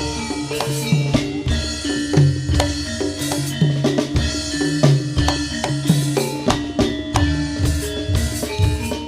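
Live jaranan senterewe ensemble playing an instrumental passage: busy drumming with many sharp strokes over sustained melodic notes, without singing.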